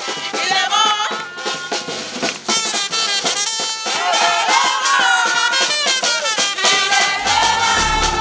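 A group of people singing and chanting together to drumming and rattling percussion. A deep bass comes in near the end.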